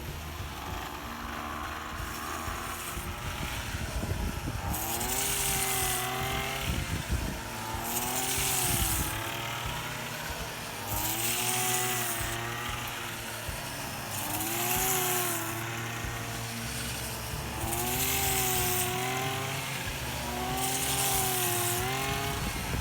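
Handheld rice-cutting brush cutter running under load, its engine pitch dipping and recovering with each sweep about every three seconds, each sweep bringing a burst of hiss as the blade cuts through the rice stalks.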